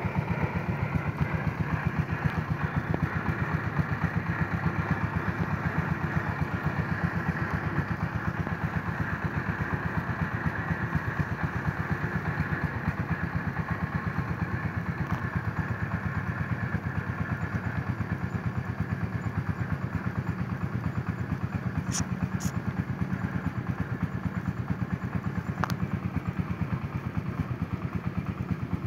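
Engine of a small log-laden truck pulling hard up a steep dirt track, running with a steady, fast pulsing beat that eases a little toward the end. A few sharp clicks sound about two-thirds of the way through.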